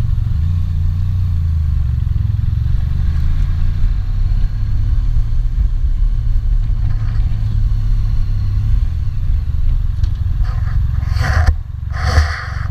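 Honda Crosstourer's V4 engine running steadily under way, with wind noise, picked up by an action camera's built-in microphone. Near the end the engine sound dips briefly, and there are two short rushes of noise.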